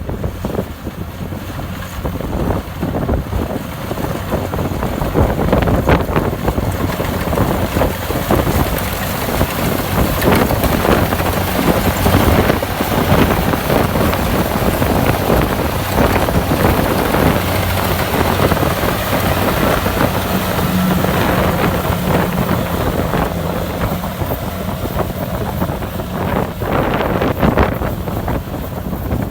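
Kubota DC-70 Plus combine harvester running steadily while harvesting rice: diesel engine and threshing machinery at work, with wind noise on the microphone.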